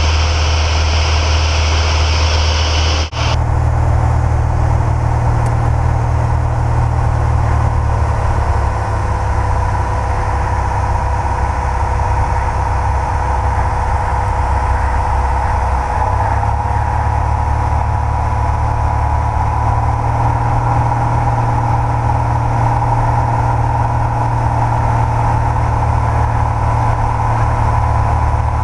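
Piper Cherokee single-engine propeller plane droning steadily in flight, heard from inside the cabin. About three seconds in the sound dips briefly, and a high hiss drops away after it.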